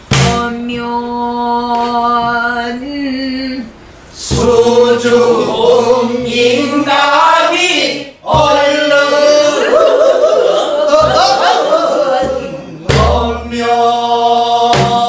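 Pansori singing: a woman's voice holds one long note, then a class of men and women sings the phrase back together. A buk barrel drum thuds as each phrase begins.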